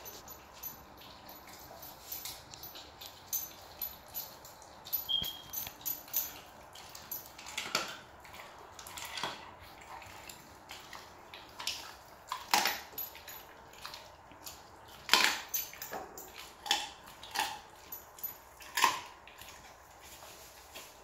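A Rottweiler chewing a raw chicken drumstick: irregular crunching and sharp cracks as it bites through the bone, with several louder cracks in the second half.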